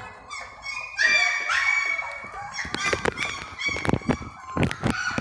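A series of high-pitched animal cries, several in a row, with sharp knocks and clicks among them in the second half.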